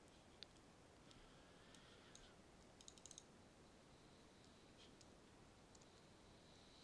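Near silence with faint computer mouse clicks: a few single clicks and a quick run of about five clicks around three seconds in.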